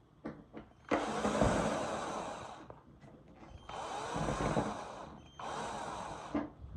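A handheld power tool run in three bursts, its motor speed rising and falling under load as it works on a part.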